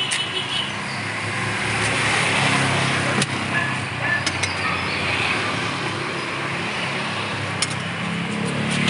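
Steady road traffic passing, with a handful of sharp metal clinks from an aluminium pot lid and a serving ladle.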